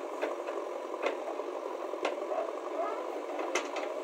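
JCB backhoe loader's diesel engine running steadily as the rear bucket digs soil, with a few faint clicks about a second apart.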